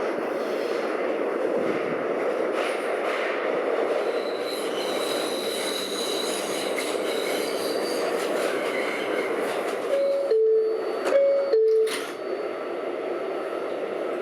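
New York City subway train running with steady rumble and wheel noise and a thin high wheel squeal in the middle stretch. About ten seconds in, a two-note descending chime, higher then lower, sounds twice: the subway's door-closing chime.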